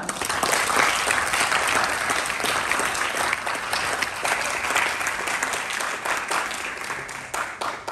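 Audience applauding: many hands clapping steadily, then tapering off near the end.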